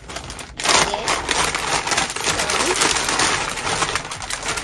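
Plastic packaging crinkling and rustling as it is handled and opened. A dense run of crackles starts about half a second in.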